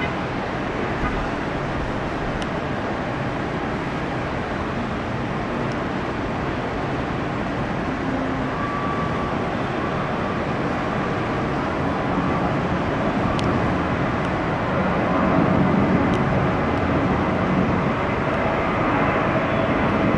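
Steady rumble of engine noise from airliners and road traffic, growing a little louder in the second half.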